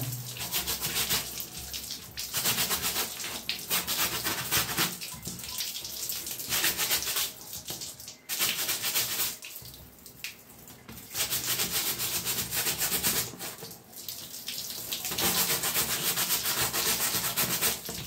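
Stiff plastic brush scrubbing a wet plastic and nylon-mesh window AC air filter: a fast rasping scrub in runs of a few seconds, broken by short pauses.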